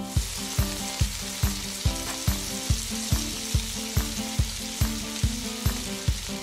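Sliced onions sizzling steadily on a hot flat-top griddle as a metal spatula turns them. Background music with a steady beat plays underneath.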